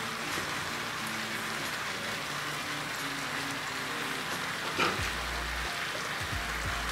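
Asparagus and ham sizzling steadily in a frying pan, with a short sharp click nearly five seconds in as more ingredients go into the pan.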